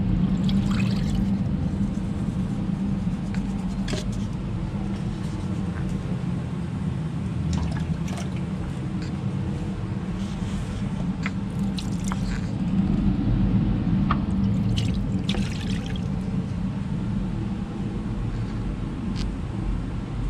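Water poured from a cup onto a lapidary cabbing machine's splash pan and running off down its drain hose, with scattered splashes and light knocks, over a steady low rumble.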